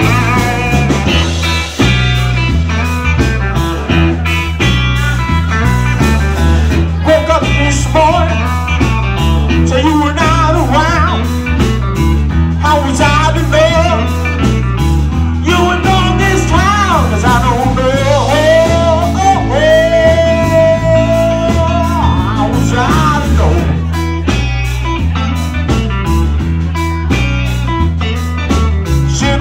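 Live blues band playing a blues instrumental: electric guitar lead with bent notes and a long held note a little past the middle, over bass and drums.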